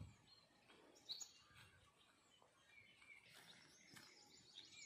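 Faint birds chirping: short, high calls and brief trills scattered over near silence, more of them in the second half.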